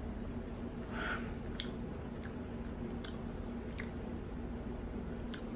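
A person chewing food, with a few sharp mouth clicks now and then, over a steady low hum.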